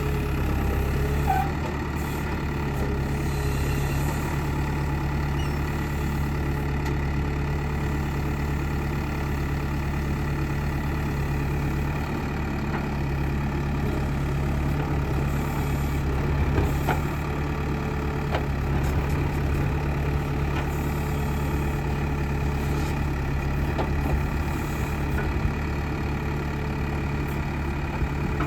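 Heavy diesel vehicle engine running steadily at low revs, with a few faint clicks on top.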